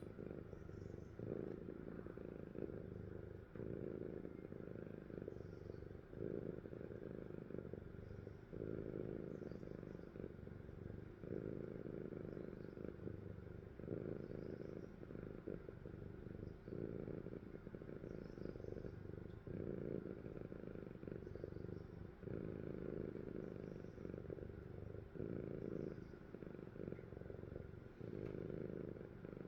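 Sleeping cat snoring: a low, steady rumble that swells and dips with each breath, about one breath every two and a half seconds.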